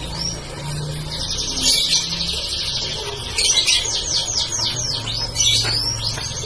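Domestic canary singing: long, fast rolling trills, broken about three and a half seconds in by a quick run of down-slurred whistled notes, then trilling again near the end.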